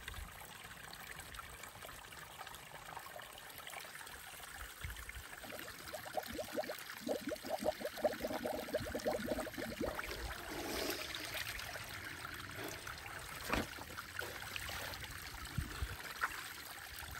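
Small mountain stream trickling, with a few seconds of closer water sounds beginning about six seconds in as water is handled at the stream. A couple of short knocks come near the end.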